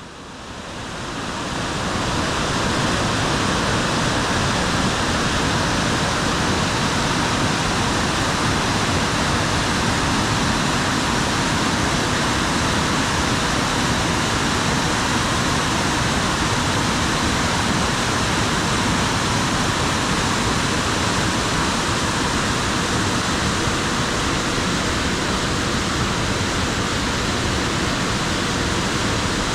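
Waterfall: water falling in a steady, even rush that fades in over the first couple of seconds.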